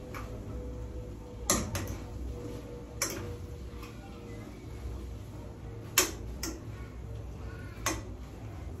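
Scattered sharp taps and clicks of kitchen utensils against cookware, about five in all, the loudest a little past halfway, over a steady low hum.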